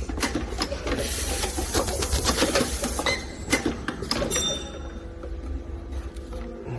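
Automatic ultrasonic care-label welding machine running: fast mechanical clicking and clatter with a few short high tones. The clatter stops about four and a half seconds in, leaving a quieter steady hum.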